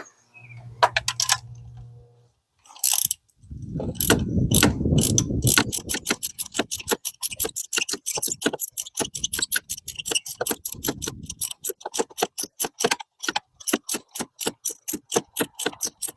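Ratchet wrench with a spark-plug socket being worked, its pawl clicking in a steady run of about four clicks a second, after a short rustling scrape in the first few seconds.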